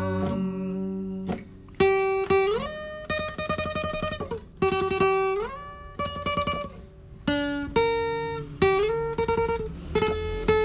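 Instrumental break in a song: a plucked-string lead plays a slow melody in separate notes. Several notes bend or slide upward in pitch, and one run is picked rapidly.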